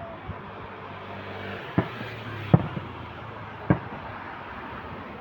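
Fireworks display: three sharp aerial shell bangs over about two seconds, beginning a little before halfway, against a steady background of noise.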